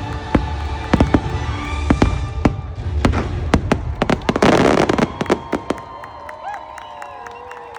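Fireworks finale: a rapid barrage of bangs over show music, peaking in a dense crackling burst about four and a half seconds in. The bangs stop about a second later, leaving the crowd's cheers and whoops.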